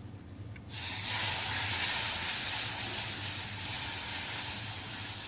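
Milk poured into a hot kadhai of ghee-roasted gram flour, dry-fruit mix and coriander powder, sizzling as it hits the hot fat. The sizzle starts suddenly about a second in and carries on steadily.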